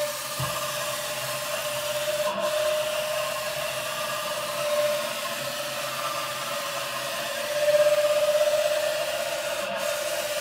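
A CNC router's JMC AC servo driving a timing-belt axis back and forth, giving a steady squeak over a rubbing noise that swells now and then and breaks briefly twice. The stiffness gain has been raised to 24, the point where the servo starts to squeak as it begins to over-compensate and oscillate.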